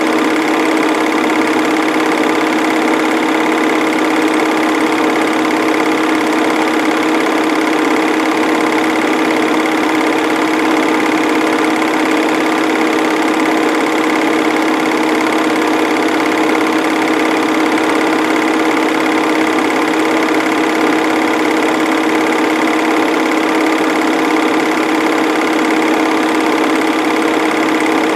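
Home-movie film projector running: a steady, unchanging mechanical whir with a few fixed hum tones.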